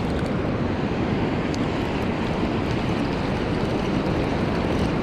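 Steady ocean surf on a beach, with wind rumbling on the microphone.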